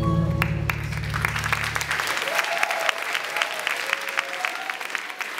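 Audience applauding at the end of a live band's song, with the band's last held chord dying away about two seconds in.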